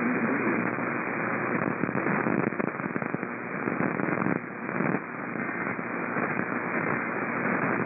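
Radio receiver static: a steady band-limited hiss with crackling, thickest about two to three seconds in.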